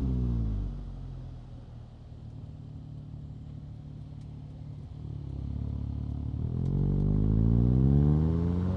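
Stock 2025 VW Golf GTI 8.5's turbocharged 2.0-litre four-cylinder: the engine note falls away as the revs drop, runs low and steady for a few seconds, then rises smoothly as the car accelerates from about five seconds in.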